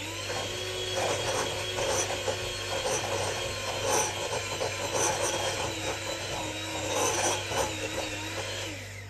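Sabichi electric hand mixer running, its beaters working flour into creamed butter in a glass bowl: a steady motor whine with irregular clatter from the beaters in the bowl. It starts right at the beginning and winds down near the end.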